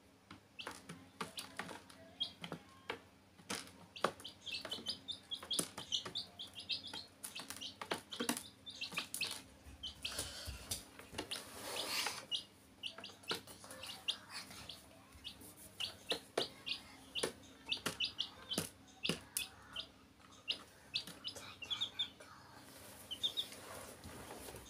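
Domestic chicks peeping in short, high, repeated chirps, with frequent light clicks and taps among them.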